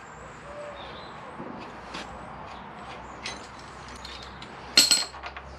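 Small metal parts and bolts being handled: a few faint clicks and scrapes, then a sharp, ringing metallic clatter about five seconds in.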